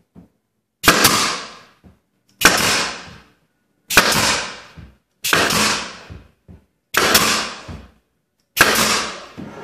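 Pneumatic 18-gauge brad nailer firing six times, about one and a half seconds apart, driving pins into the back edge of faux-wood plank paneling. Each shot is a sharp crack that fades out over most of a second.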